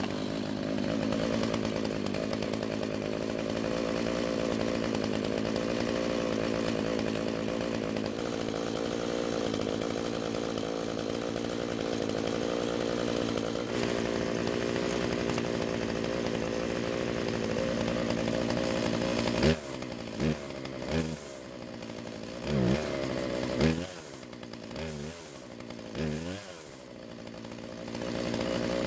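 Husqvarna 142 two-stroke chainsaw engine running at a steady idle just after starting, its low-speed mixture screw opened a quarter turn richer. After about 19 seconds the throttle is blipped in several short revs, with the idle sagging between them. The owner judges that it runs better but still needs more fuel at idle.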